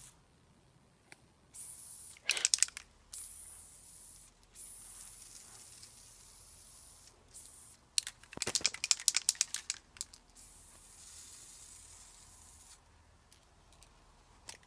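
Aerosol spray-paint can spraying in three bursts of two to three seconds each. In between, around the middle, the can is shaken and its mixing ball rattles in a quick run of sharp clicks.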